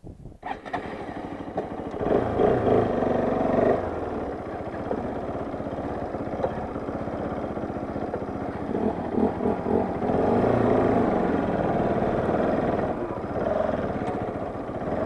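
Motorcycle engine running under way, the revs swelling and easing a few times.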